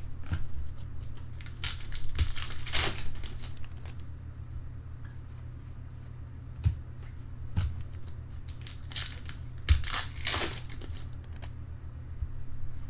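Foil trading-card packs and cards being handled: crinkling and rustling in two stretches, a couple of seconds in and again near ten seconds, with a few light taps between, over a steady low hum.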